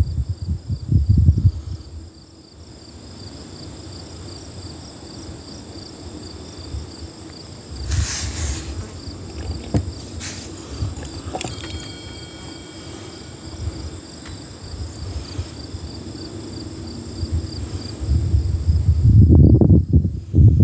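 Insects chirping in a steady, even pulsing rhythm. Louder low rumbling noise comes near the start and again near the end.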